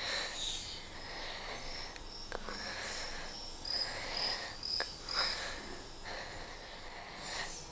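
Insects chirping steadily, with a run of about five short, high chirps in the middle and a few soft clicks.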